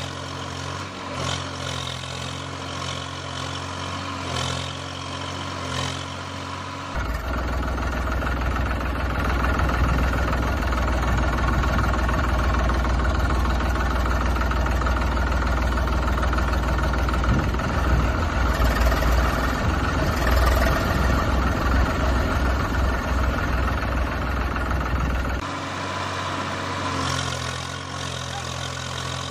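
Tractor engine sound effect: a steady idling hum that cuts abruptly about seven seconds in to a louder, rougher run with a deep rumble, then cuts back to the idle about four seconds before the end.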